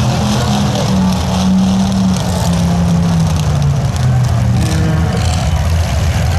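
Demolition derby car engines running loudly on the track, one engine's pitch slowly falling over the first few seconds.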